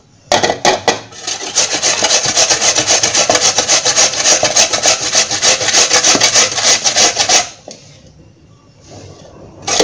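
Raw potato being grated on the coarse side of a metal box grater: rapid, even rasping strokes that pause about three-quarters of the way through and start again at the very end.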